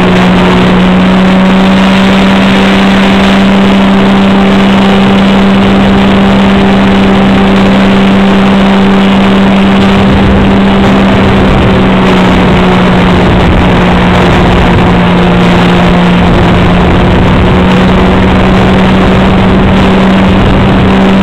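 Ultralight trike's engine and propeller running steadily, very loud and close on the microphone, with one unchanging pitch throughout.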